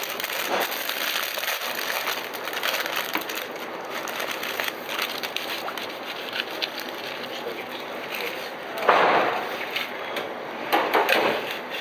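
Dry thyme and bay leaves crackling and rustling as they are crumbled by hand from a plastic bag. There is a louder rustle about nine seconds in.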